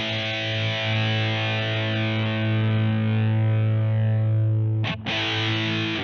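Electric guitar played through an iSet Distortion mini pedal: a heavily distorted low chord rings on and grows darker, then is cut off and struck again about five seconds in.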